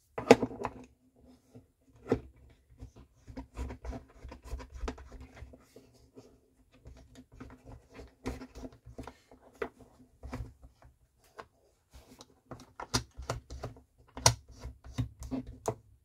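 Small irregular clicks and taps of a Land Rover flip-key's plastic shell and metal blade being handled and worked into a plastic holding fixture, with a few sharper knocks. A faint steady hum runs underneath.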